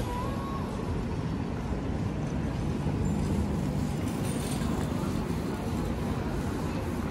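City street ambience: steady noise of road traffic, strongest in the low end, with no single event standing out.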